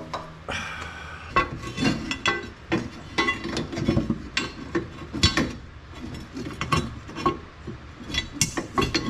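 Irregular metallic clinks and knocks of hand tools and metal parts as a car's transmission TV cable is worked free.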